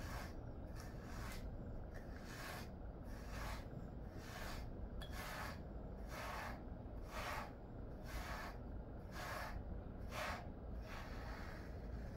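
Pet grooming brush stroking through a Jindo-mix dog's belly fur: a steady run of short scratchy brushing strokes, about one and a half a second.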